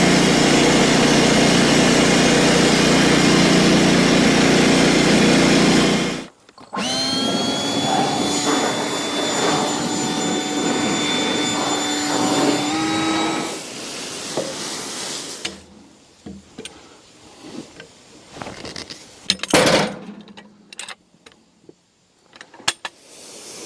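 Band sawmill running under load while it cuts a log, a steady mechanical noise with engine tones. It stops abruptly, then the mill runs up again with a rising whine that settles into a steady tone and dies away, followed by scattered knocks and clicks.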